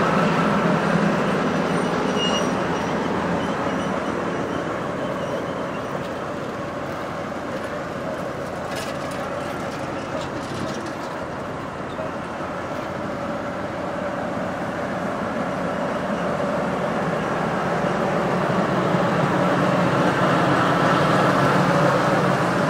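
DR1A diesel railcar's engine running steadily at a standstill, a constant mechanical hum that grows louder near the start and end and dips in the middle.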